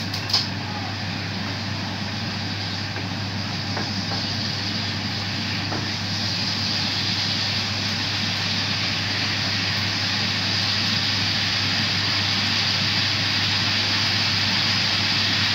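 Ampalaya and black bean sauce simmering and sizzling in a frying pan, a steady hiss that slowly grows a little louder as the sauce boils and reduces, over a low steady hum.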